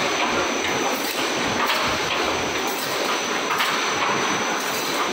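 Automatic wire mesh welding machine for 3D wall panels running, a steady mechanical clatter with a regular stroke about once a second.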